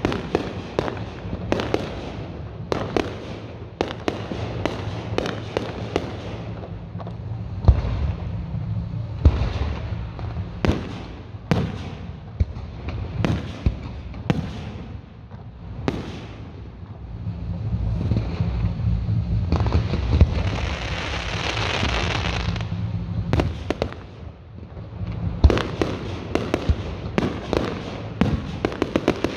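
Fireworks going off: a long run of sharp shell bursts and bangs at uneven intervals, with a dense stretch of crackling about twenty seconds in.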